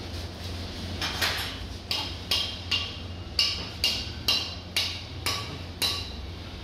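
About eleven sharp metallic strikes, roughly two a second, each with a short high ring: a hammer striking metal.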